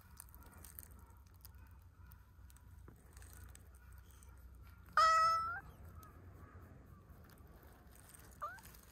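A brown tabby cat meows once about five seconds in, a short clear call of about half a second, then gives a faint, brief second call near the end.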